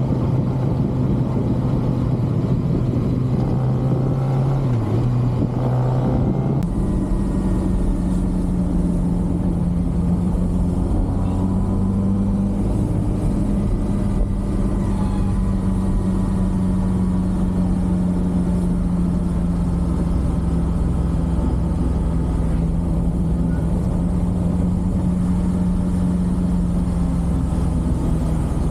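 A stock 2023 Kawasaki ZX-6R's inline-four engine running at a steady cruising speed, with wind and road noise. About six and a half seconds in the engine note jumps higher and holds steady at that pitch.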